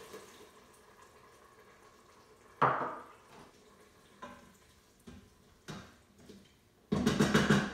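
Wooden spoon stirring sauce in an Instant Pot's stainless steel inner pot and knocking against it. There is one loud knock about two and a half seconds in, a few lighter clicks after it, and a quick run of knocks near the end.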